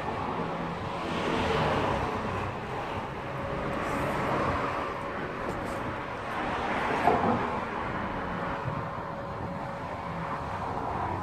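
Pit-type car parking lift running as its platform lowers a car into the pit: a steady mechanical hum over outdoor background noise, with a single short knock about seven seconds in.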